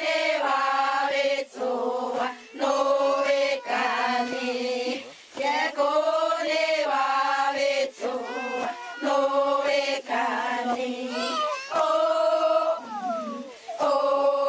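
A group of women singing a chant together in unison, in short repeated phrases of held notes with brief breaks between them.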